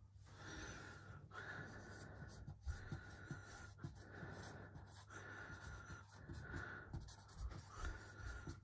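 Felt-tip marker writing on a whiteboard: faint scratchy strokes of the nib, one after another with brief pauses between them.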